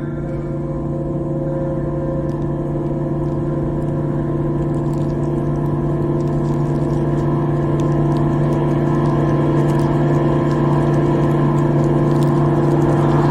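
Background music: a sustained, droning ambient chord that swells slowly and steadily louder.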